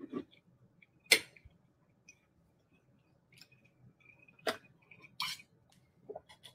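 Eating and drinking sounds: a few sharp clicks and smacks of the mouth and tableware, the loudest about a second in, then a glass of orange juice lifted and sipped near the end.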